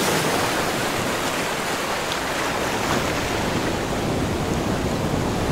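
Ocean surf washing over shoreline rocks, a steady rushing with no distinct wave breaks.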